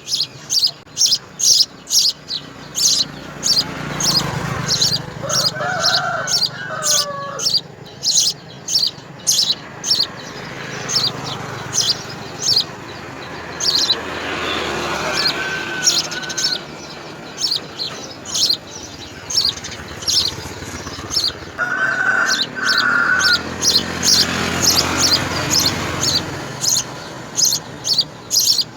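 Young birds chirping rapidly and repeatedly: short high-pitched chirps at about three a second. A few lower, longer calls come from another bird a few times, about a fifth of the way in, midway and near three-quarters through.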